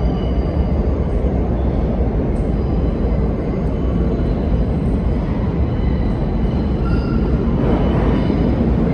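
Subway train running on a track out of view, a loud steady rumble with faint thin squeals of steel wheels on rail. Near the end a brighter wheel screech begins to build.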